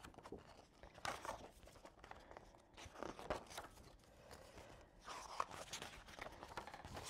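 Pages of a paper picture book being handled and turned: several faint paper rustles and crinkles.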